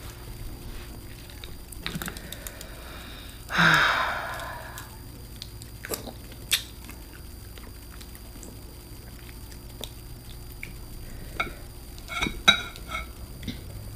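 Close-up sounds of a person eating boiled seafood (shrimp, crawfish and crab): wet chewing and squishing with scattered sharp clicks from the shells. The loudest moment, about three and a half seconds in, is a noisy swish that lasts about a second and dies away.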